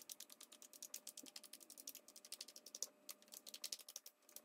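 Faint, rapid run of light key clicks from a TI-99/4A's Mitsumi keyboard, its keys pressed one after another to test each of them now that the membrane has been reheated.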